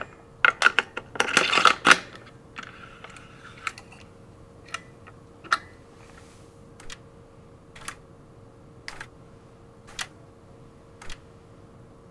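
A bicycle thru-axle being fitted and tightened into the fork, a quick run of clicks and rattles in the first two seconds. Then the refitted front wheel spins freely with its disc brake, giving a light tick about once a second as it slows.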